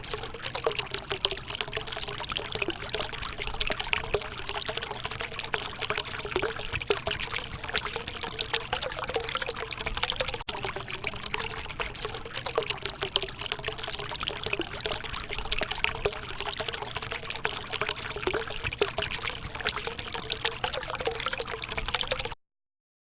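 River water lapping and trickling at the bank, a dense, steady splashing with a faint wavering hum underneath; it cuts off suddenly near the end.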